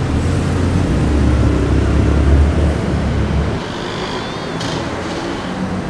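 City road traffic: a heavy low rumble for about three and a half seconds that cuts off abruptly, then lighter, steadier traffic noise with a brief faint high squeal.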